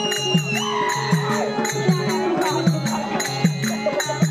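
Therukoothu folk ensemble music: a drum keeps a steady beat with bass strokes that bend down in pitch, and hand cymbals strike in time. A high held note stops about half a second in, and a wavering melody line follows.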